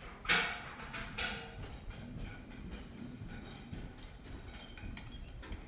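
Wooden boards knocking as shed lumber is handled: a sharp knock about a third of a second in, another about a second in, then scattered light taps and scrapes.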